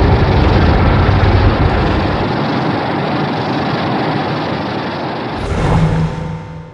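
Loud rumbling monster sound effect made for the kaiju Baragon: a dense, noisy rumble whose low end drops away after about two seconds, swells once more near the end, then fades out.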